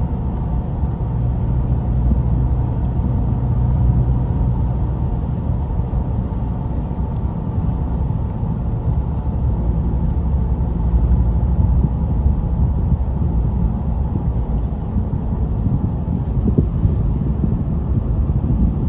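Steady low rumble of a car cruising at freeway speed, heard from inside the cabin: tyre and engine noise.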